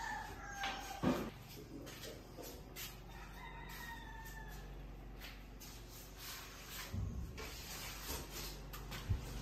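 Rooster crowing, one crow trailing off in the first second and a fainter second crow about three to four seconds in. A sharp knock about a second in is the loudest sound, with a couple of low thuds near the end.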